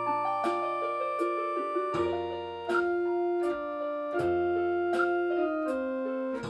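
Electronic keyboard played with a piano voice: a Christmas tune, held chords and melody notes over a bass line.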